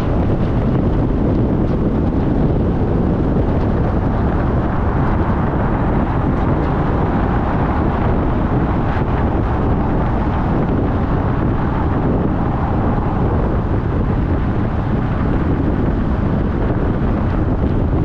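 Car driving at a steady speed: an even low rumble of road and engine noise with no changes.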